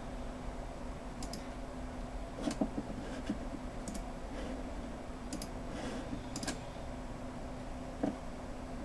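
Irregular, scattered clicking at a computer as volumes are deleted in disk management, about a dozen short clicks over a steady low hum.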